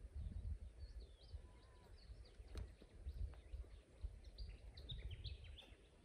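Faint dawn chorus of Australian bush birds: scattered short high chirps and calls, thickening into a quick run of notes near the end, over a gusty low rumble.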